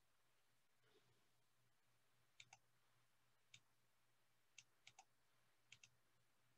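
Near silence broken by about eight faint computer mouse clicks, several in quick pairs, from about two and a half seconds in.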